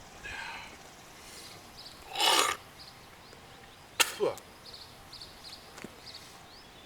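A man drinking from a 40 oz bottle of malt liquor: a short breathy whoosh, then a sharp click about two seconds later. Faint insect chirps sound in the background.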